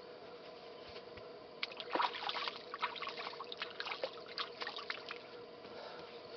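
Water splashing and trickling: a quick run of small splashes for about three seconds, starting a little way in, over a faint steady hum.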